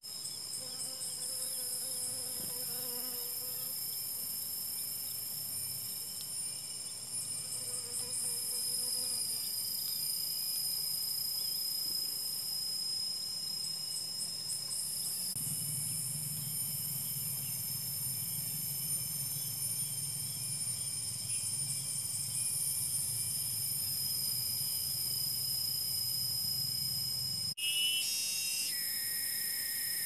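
A steady, high-pitched insect chorus in the undergrowth, with a low hum joining about halfway. Near the end the sound breaks off briefly and a few high whistled notes follow.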